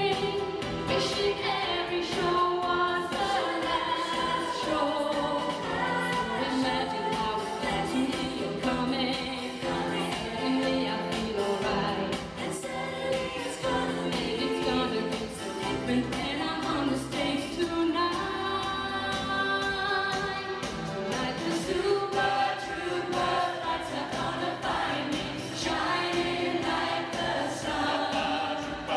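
A choir singing a 1970s pop song live, many voices together.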